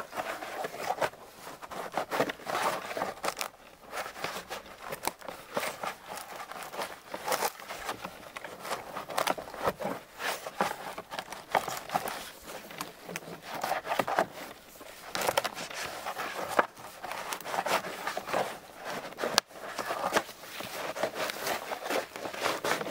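Winter birch bark being pried off a felled log with a plastic tool: irregular scraping, crackling and tearing as the stiff bark is worked free. With no sap in the tree, the bark is still glued to the wood by its cambium layer and has to be forced off.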